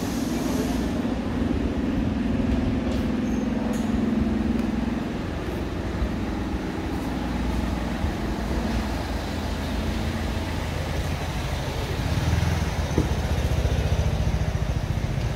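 Steady road-traffic rumble of passing vehicles, swelling in the first few seconds and again near the end.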